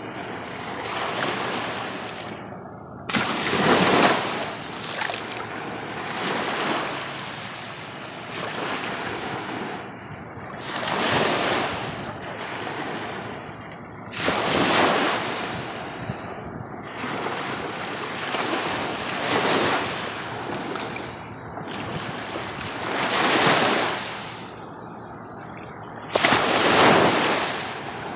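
Surf washing up over the sand, swelling and falling back every few seconds, with wind noise on the microphone.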